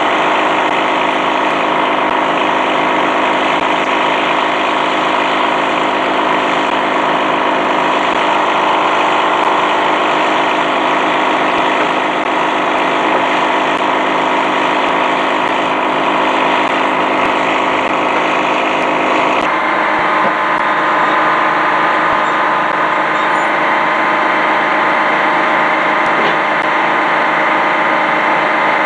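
Engine running steadily at constant speed, a continuous even drone. About twenty seconds in the note changes suddenly to a slightly different steady engine sound.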